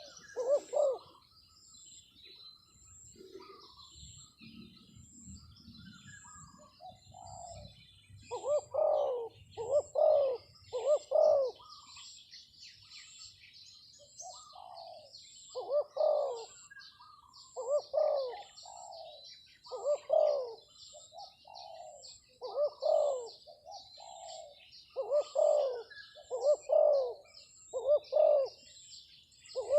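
Spotted dove (terkukur) cooing in repeated phrases of two or three rounded coos, starting again about 8 seconds in after a pause. Small birds twitter faintly behind it, and a faint high tick sounds about once a second.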